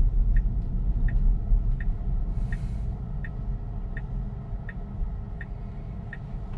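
Tesla turn-signal ticking evenly, a little more than once a second, over low road and tyre rumble that fades as the car slows nearly to a stop. A brief hiss sounds about two and a half seconds in.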